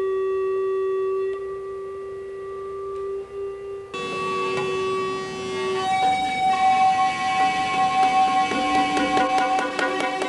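Experimental electronic sound from an effects-pedal setup: a steady held tone with overtones, thickened by noise about four seconds in, then switching to a higher held tone about six seconds in, which breaks into a fast pulsing stutter near the end.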